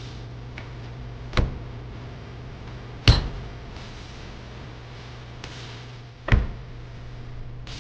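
Three sharp knocks several seconds apart, the middle one loudest, over a steady low hum.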